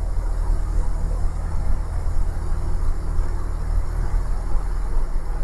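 Cessna 172's piston engine and propeller running at full throttle during the takeoff roll, a steady low drone heard inside the cabin.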